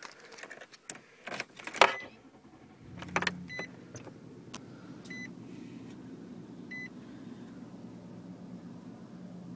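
Clicks and knocks, then about three seconds in the 2013 Nissan Titan SV's 5.6-litre V8 starts and settles into a steady idle. A short high dashboard beep sounds three times as it idles.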